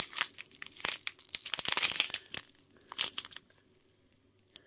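Small clear plastic bag of diamond-painting drills crinkling as fingers squeeze and turn it, the drills shifting inside. The crinkling stops about three and a half seconds in, followed by a couple of faint ticks near the end.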